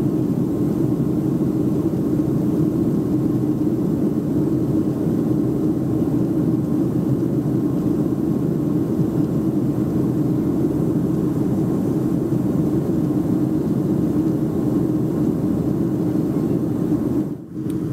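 Steady cabin noise inside a Boeing 737-300 airliner in flight: the even rush of airflow and its CFM56-3 turbofans, heaviest in the low-middle range. The sound drops out briefly near the end.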